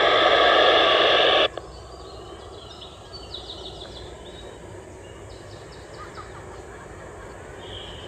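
A loud, steady buzz with several even tones that cuts off suddenly about a second and a half in. After it comes quiet outdoor ambience with a few short, high chirps and trills.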